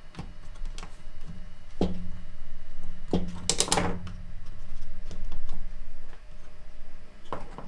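Plastic clicks and knocks of a cordless screwdriver's housing and parts being handled and pressed together, with a quick cluster of louder clacks about three and a half seconds in.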